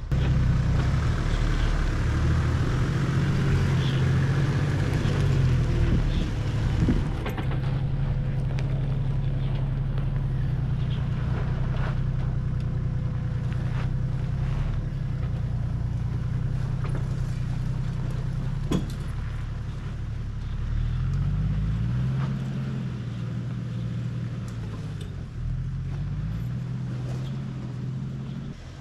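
Toyota Land Cruiser Troop Carrier driving on a rough dirt track, its engine running steadily and shifting pitch about three-quarters of the way through. There are occasional knocks and rattles, the loudest two about a quarter and two-thirds of the way in.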